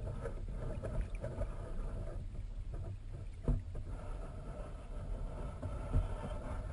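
River current recorded underwater: a steady low rumble with scattered knocks, the two clearest about three and a half seconds in and near six seconds.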